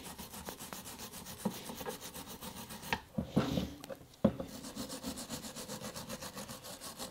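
Rapid back-and-forth hand scrubbing of a rear brake caliper bracket being cleaned up, about eight strokes a second, with a short pause and a knock about three to four seconds in before the scrubbing resumes.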